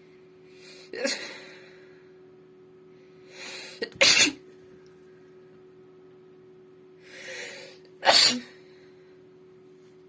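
A woman sneezing three times, each sneeze preceded by a short intake of breath. The second and third sneezes are the loudest.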